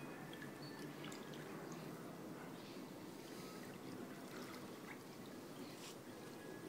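Pool water lapping and sloshing gently as a floating body is drawn slowly through it, with a steady low wash and scattered small drips and splashes.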